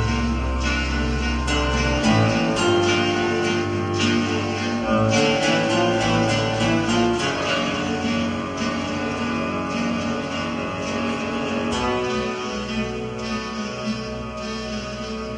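Instrumental music.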